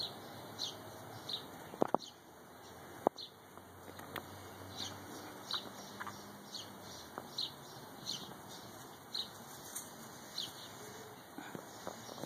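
A bird chirping over and over, a short high note about three times every two seconds, with a few sharp clicks around two to three seconds in.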